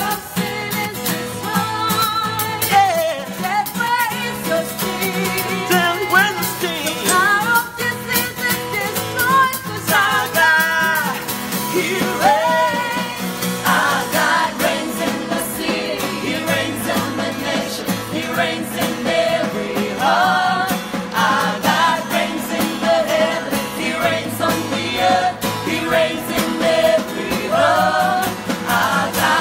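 A small group of voices singing a worship song together, accompanied by a strummed acoustic guitar.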